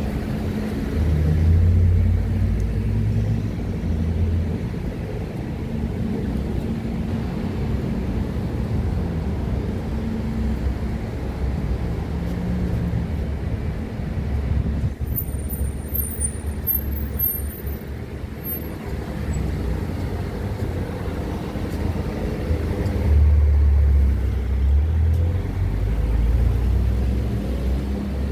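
City street traffic: cars running past with a steady low rumble, a louder vehicle passing close about two seconds in and again near the end.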